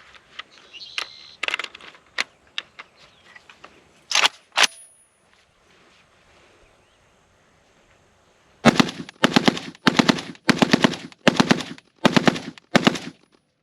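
PSA AK-105 rifle in 5.45x39 bump-fired: after a couple of sharp metallic clicks about four seconds in, about seven quick strings of rapid shots come one after another near the end.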